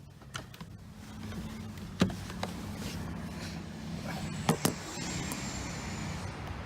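Nissan Juke's engine idling steadily, with a few short clicks and knocks about two seconds and four and a half seconds in.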